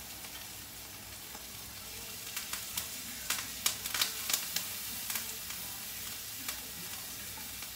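Chopped shallot and fresh thyme sprigs sizzling in hot olive oil in a frying pan, a steady hiss with scattered sharp crackles and pops that grow more frequent after the first couple of seconds.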